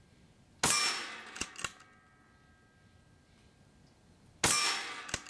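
Two shots from a regulated Daystate Delta Wolf PCP air rifle firing .25 calibre JSB pellets, about four seconds apart. Each is a sharp crack with a ringing tail, followed by two quick clicks.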